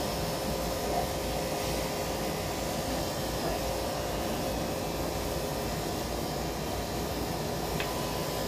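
Electric pet grooming clippers running with a steady hum as they trim a Yorkshire terrier's coat.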